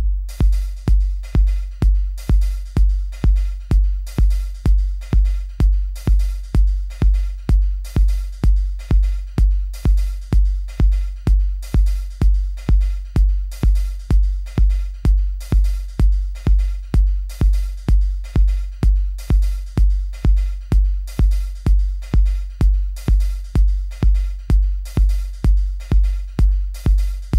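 Background music with a steady electronic kick-drum beat, about two beats a second.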